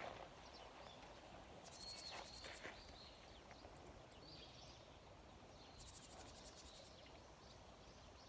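Faint outdoor morning ambience: small birds chirping, with two short, high, buzzy trills about two and six seconds in.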